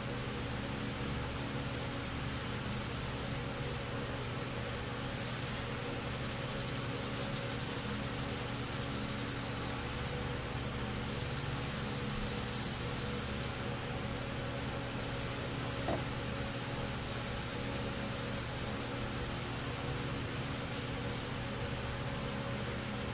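Hand sanding of primer on a small plastic part with an abrasive sheet on a sanding block: a hissy rubbing of quick strokes, in several runs with short pauses between. A low steady hum runs underneath.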